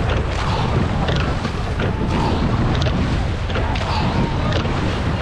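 Wind buffeting the microphone over the rush of choppy sea around a wooden six-oared pilot gig under way, with short knocks and splashes scattered through it.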